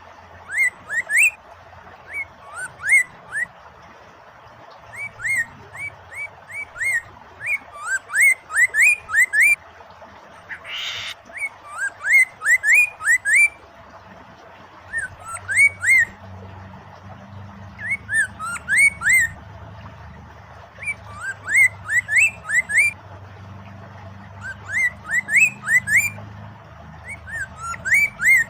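Poksay Mandarin laughingthrush singing: phrases of quick, upward-sweeping whistled notes with high chirps, repeated every second or two with short pauses, over a steady background of running water. A brief rush of noise cuts in about eleven seconds in.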